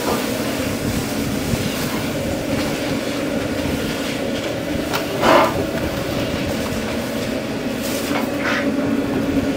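Steady mechanical hum of a food truck's running equipment, with a few short clatters; the loudest comes about five seconds in.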